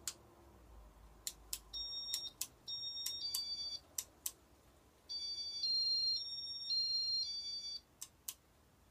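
Casablanca W11 Inteli-Touch fan control beeping as it is worked: sharp button clicks with short electronic beeps of two or three notes, then a longer run of beeps that steps between pitches about five seconds in.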